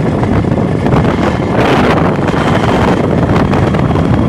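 Wind buffeting the microphone on a moving motorcycle, with the bike's engine running steadily underneath.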